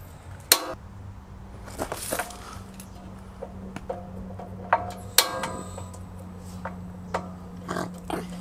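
Repeated sharp clicks from a Cadac gas barbecue as its burner is tried and fails to light, with a steady low hum underneath from about a second in. The burner does not catch because the gas valve at the far end of the hose had come unconnected.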